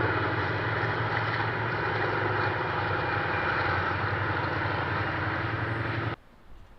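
A steady, loud engine drone that holds an even pitch, cut off abruptly about six seconds in.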